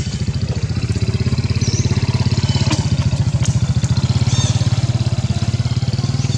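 An engine idling with a fast, even throb, a little louder in the middle.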